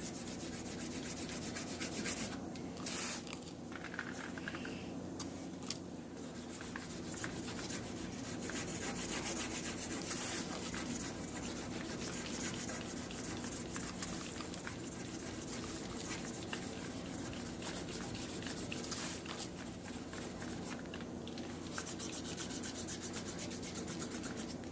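Wet sanding of automotive clear coat with 600-grit paper on a sanding board: steady back-and-forth rubbing strokes over the wet paint.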